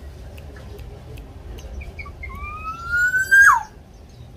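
Black-naped oriole giving a few short notes, then one long whistle that rises slowly and drops sharply at its end, about three and a half seconds in. Faint ticks and a low rumble sit underneath.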